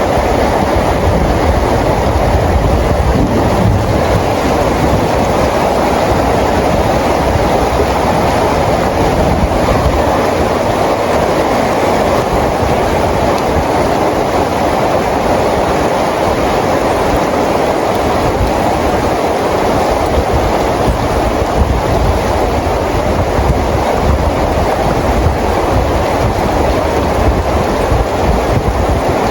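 Steady rain falling, an even dense hiss with a low rumble beneath it.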